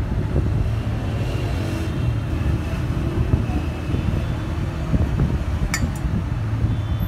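Steady low rumble of street background noise, with two sharp clicks close together about six seconds in.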